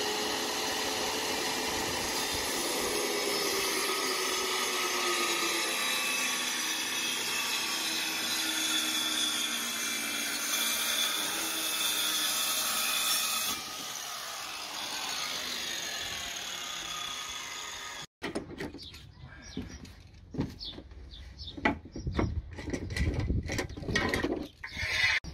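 Stanley circular saw ripping a sheet of film-faced plywood along a clamped straightedge: steady motor whine and blade cutting noise. It grows quieter a little past halfway and then stops abruptly, followed by scattered knocks and clatter as the clamp and metal guide are handled.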